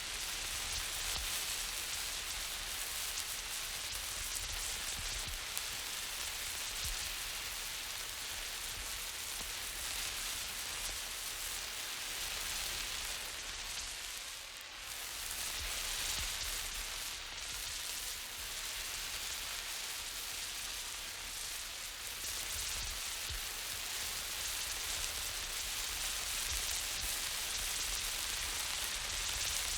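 A burning emergency flare hissing steadily. The hiss swells and eases a little as the flare is moved, with a short dip about halfway through.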